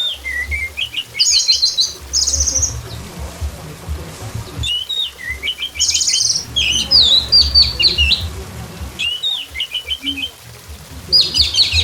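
Orange-headed thrush singing in four bouts of rapid, varied chattering and trilled phrases, with a steady low rumble underneath.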